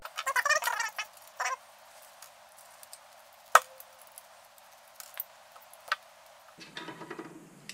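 Metal monitor-mount bracket parts and hand tools clinking and tapping as they are handled and set down on a wooden workbench: a quick run of clicks at the start, one sharp click a few seconds in, then scattered light taps and handling noise.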